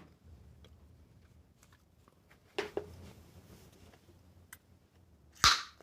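Bubble gum being chewed and snapped in the mouth: soft clicks, a sharp snap about two and a half seconds in, and a louder crack near the end.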